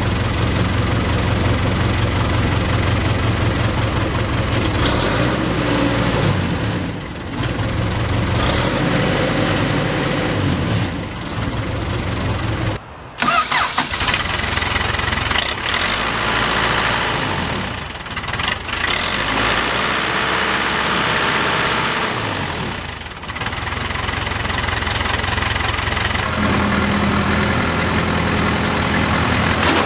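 Diesel engine of a Case 580K backhoe loader running, its speed and loudness shifting several times, with a brief break about halfway through.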